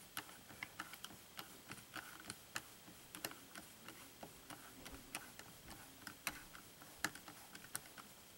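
Ratcheting screwdriver clicking irregularly, a few faint clicks a second, as it backs screws out of a radio-controlled truck's chassis.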